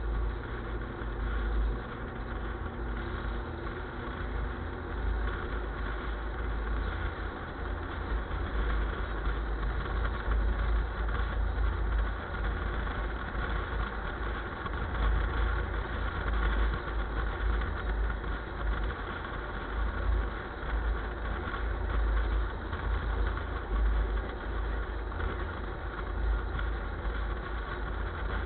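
A motor vehicle's engine running steadily, with a deep, uneven rumble underneath.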